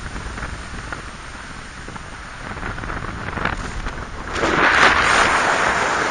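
Wind noise on the microphone of a camera on a flying paraglider, a steady rush that swells into a louder gust about four seconds in.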